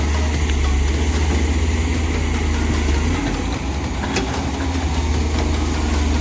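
Komatsu hydraulic excavator's diesel engine running with a steady low drone, which eases a little about halfway through. A single sharp click comes a second or so later.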